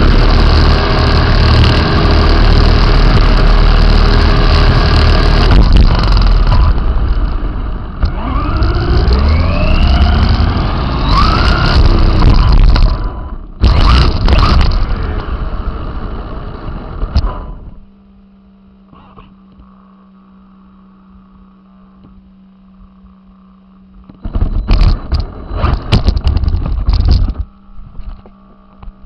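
RC car's motor driving hard over rough ground, its whine rising in pitch several times as it speeds up. It cuts out about two-thirds of the way through, leaving a faint steady low hum, then comes back in short bursts near the end.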